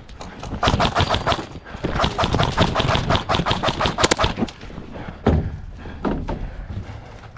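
Airsoft rifle firing rapid bursts of shots, densest between about 2 and 4.5 seconds in, followed by a couple of separate thuds.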